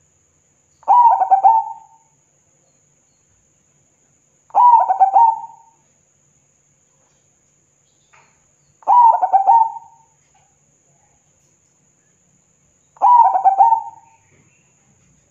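Zebra dove (perkutut) singing: four cooing phrases, each a quick run of notes lasting about a second, spaced roughly four seconds apart.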